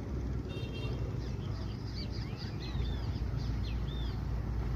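Small birds chirping many times in quick succession over the steady low rumble of a passenger speedboat's Volvo Penta engine running on the river.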